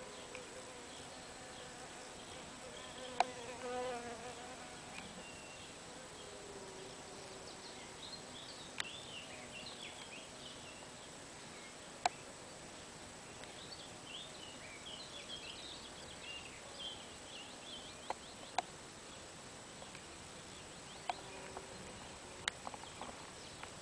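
A solitary miner bee buzzing in flight, its wing hum coming and going and loudest about three to four seconds in. Several sharp clicks and faint high chirps are scattered through.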